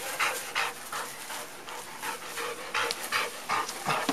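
Yellow Labrador retriever panting with its mouth open, in quick regular breaths, about two to three a second.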